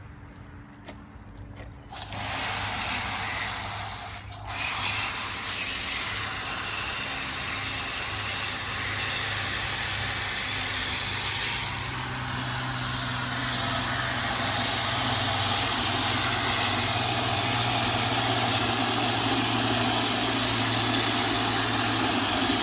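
Water gushing steadily into a container to fill it for compost tea, with a low steady hum underneath. It starts about two seconds in, breaks off briefly near four seconds, and slowly gets louder as the container fills.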